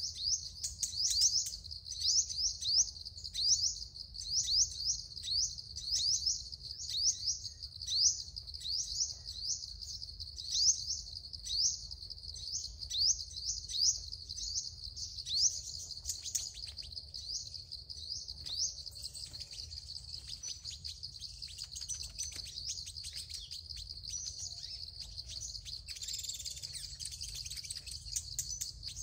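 Sunbird calls: high, thin, upward-sweeping chirps repeated about twice a second, giving way about halfway through to looser, scattered twittering.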